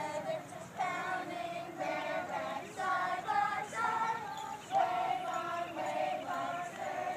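A group of children singing together, a simple tune with each note held for about half a second.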